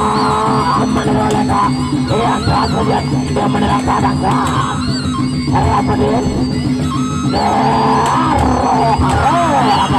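Traditional Sasak gamelan ensemble playing loudly: a wavering melody over steady low tones, with regular percussive strikes.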